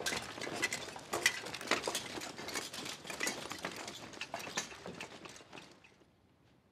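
Footsteps of a group of people walking off together, many irregular steps fading away about six seconds in.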